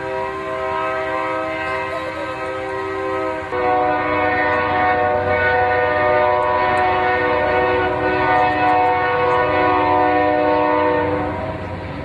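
A train's multi-chime air horn sounding one long blast. About three and a half seconds in the chord shifts to a different pitch and grows louder, then it fades out near the end.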